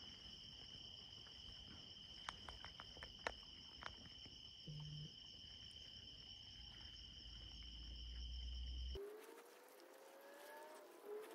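Night insects chirring in a steady chorus at two high pitches, with a few faint clicks; the chorus cuts off about nine seconds in.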